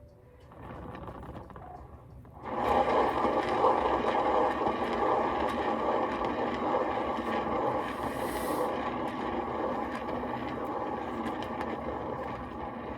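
Tiny battery-powered mini leaf blower running steadily, its small motor whining as it blows poured acrylic paint out into bloom petals; it starts faintly and gets much louder about two and a half seconds in.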